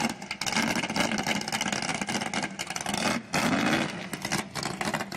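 Jet boat's engine running at speed across the water, its note rising briefly about three seconds in.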